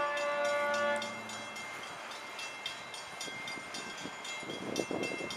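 Freight locomotive air horn sounding a chord that cuts off about a second in, over a grade-crossing bell ringing in rapid, even strikes. A low clatter builds near the end as the train draws near.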